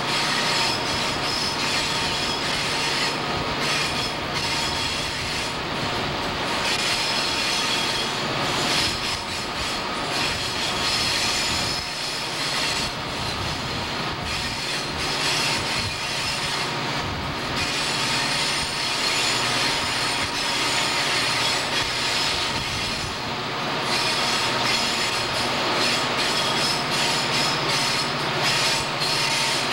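CSX diesel locomotives and coal hopper cars rolling around a curve, steel wheel flanges squealing against the rail with shifting high tones over the steady running of the locomotive engines.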